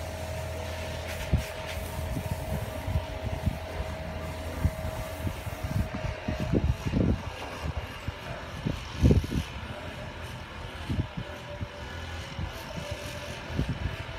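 A motor vehicle engine running with a steady whine and low hum that cut off about six seconds in, among irregular low thumps and rumbles.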